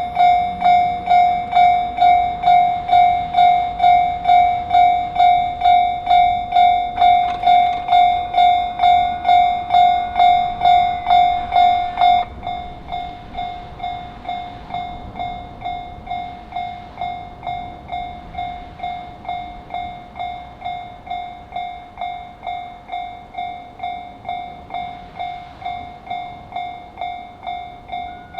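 Japanese railway level-crossing alarm ringing: a repeated electronic 'kan-kan' strike, a little under two a second. About twelve seconds in it suddenly drops to a quieter level and keeps ringing.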